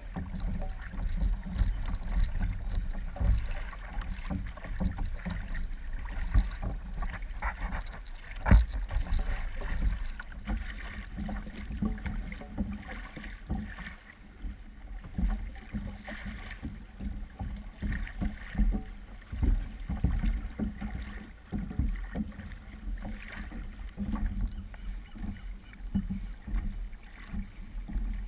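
Seawater slapping and knocking irregularly against a plastic kayak hull over a low rumble, with one sharper knock about eight and a half seconds in.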